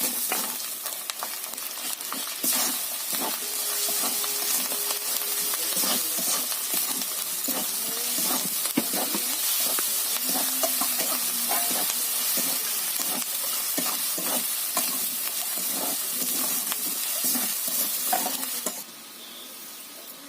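Food sizzling in hot oil in a pan while being stirred, with frequent clicks and scrapes of the spoon against the pan; the sizzling drops much quieter near the end.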